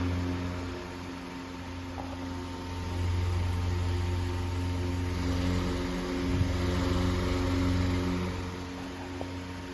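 Antique Century S3 16-inch table fan running: a steady electric motor hum under a rush of moving air, its loudness slowly swelling and fading over several seconds.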